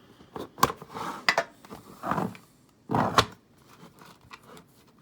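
Handling noise from a metal card tin: a few sharp clicks and knocks with short scraping between them as the tin is picked up and its lid worked open.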